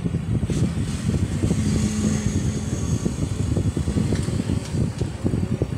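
A speaker on a Konzert AV-638B+ mixing amplifier gives only rapid, irregular low popping and crackling instead of audio. The amplifier is powered on but putting out no sound.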